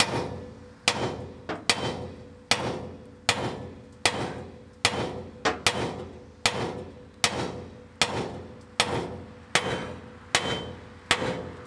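Hammer blows on a rusted ball mount stuck in a pickup's hitch receiver: steady strikes a little under a second apart, a few in quick pairs, each with a short metallic ring.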